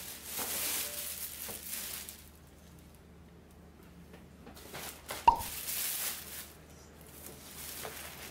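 Thin black plastic bag rustling and crinkling as it is set down and pulled open around a box. There is one sharp tap about five seconds in.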